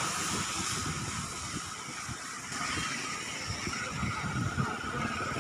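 A swollen river in flood, its muddy water rushing past as a steady noisy hiss with irregular low rumbles.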